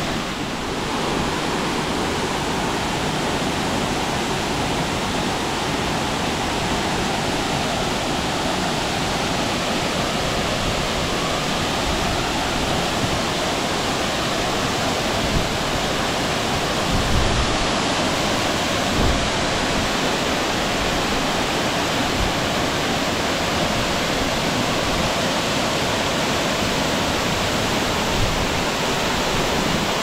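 Waterfall rushing steadily, a constant dense hiss of falling water. A few brief low thumps come about halfway through.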